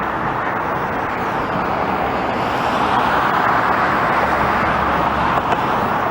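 Jet aircraft engine noise: a loud, steady rushing that swells a little midway.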